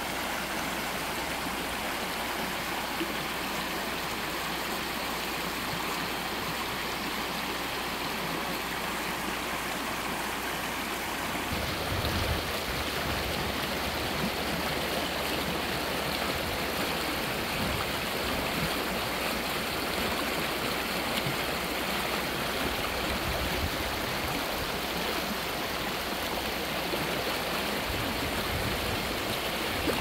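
Shallow mountain stream rushing and babbling over a cobble bed, a steady water noise. About twelve seconds in it changes to a brighter, fuller rush with some low rumble.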